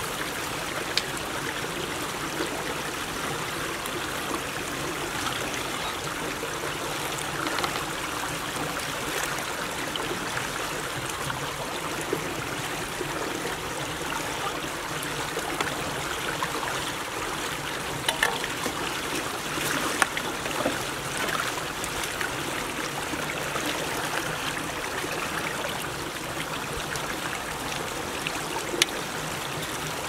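Fast current of water rushing steadily through a field drainage ditch at a culvert being cleared of beaver-dam debris, with a few sharp clicks near the middle.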